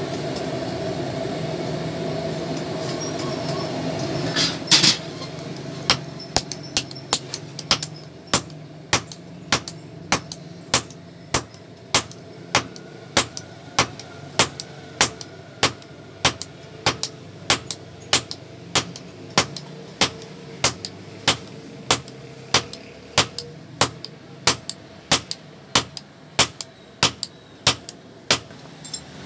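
A steady mechanical hum stops after about four seconds, followed by one heavy blow. From about six seconds in, a hand hammer strikes red-hot iron on a steel anvil block at an even pace of about two blows a second, and each blow rings briefly.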